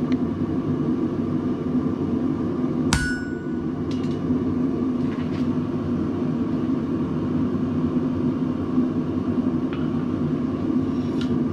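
Blacksmith's hammer striking hot steel on an anvil: one sharp, ringing blow about three seconds in and a few lighter taps, over the steady noise of the forge running.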